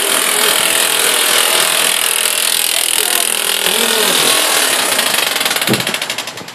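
Loud steady machine noise from construction work, with a fast rattling edge, dying away in the last second; faint voices underneath.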